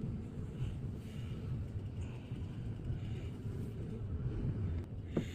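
Battery-powered 1:12 RC crawler truck running, its electric motor and geared drivetrain giving a steady low rumble, with a sharp click near the end.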